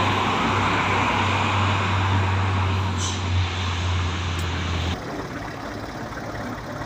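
Truck engine running steadily, with a low hum under road noise, until it cuts off sharply about five seconds in; a fainter outdoor background follows.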